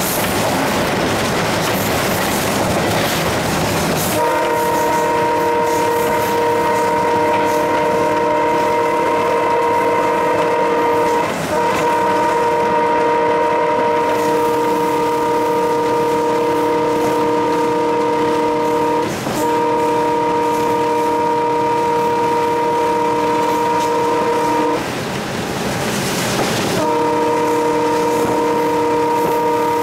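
Alco WDM3A diesel locomotive's horn blown in long, steady blasts, heard from inside the cab, starting about four seconds in, with two brief breaks and a two-second pause near the end before it sounds again. Before the horn, the running locomotive and its wheels on the rails.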